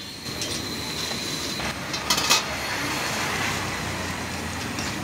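Instant noodles boiling and bubbling in a wide steel pan as a steel ladle stirs them, with two sharp clinks about two seconds in. A steady wash of street traffic runs underneath.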